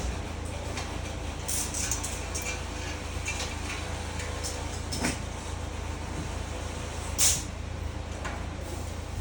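Metal parts of a microwave stand being handled during assembly: a few sharp clicks and knocks, the loudest about seven seconds in, over a steady low hum.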